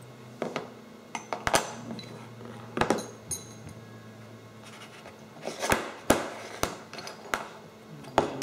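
Metal brackets and parts from a CNC coil winder kit being handled and set down on a wooden workbench: about ten irregular clinks and knocks, a few with a short metallic ring.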